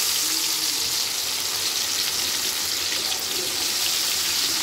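Battered cauliflower pieces deep-frying in a kadai of hot oil: a steady, loud sizzle with fine crackling as the freshly added batter bubbles.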